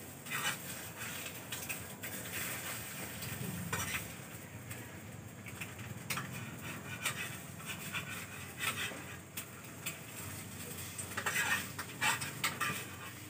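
A spatula scraping and knocking against a frying pan in irregular strokes, over the steady sizzle of eggs frying in hot oil.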